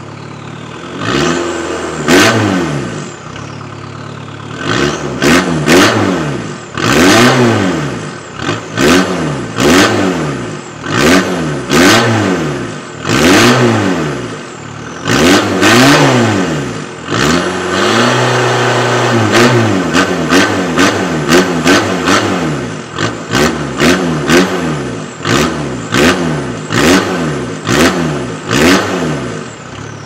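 VW Rabbit pickup's 1.9-litre turbodiesel, standing still with no load, revved from idle over and over in quick blips about a second apart, a few held for a second or two, dropping back to idle between them.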